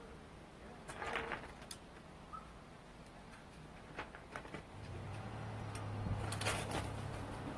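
A Northwestern crow fledgling's harsh begging call, faint, about a second in, with a few scattered clicks. From about halfway a low hum builds, and another short harsh burst comes near the end.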